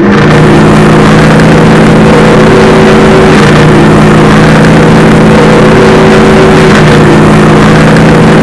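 Ship's horn sounding one long, unbroken blast: several low notes held together as a chord, very loud with a harsh noisy edge.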